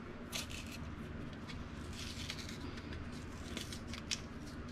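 Faint rustling and small clicks of kitchen items being handled, over a low steady hum.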